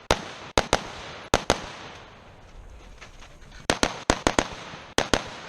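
Rifle fire: about a dozen sharp shots, mostly in quick pairs, with a pause of about two seconds in the middle before a fast string of five.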